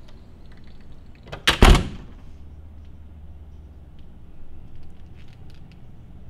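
A door banging shut once, with a short click just before the main bang, about a second and a half in. A steady low hum runs under it.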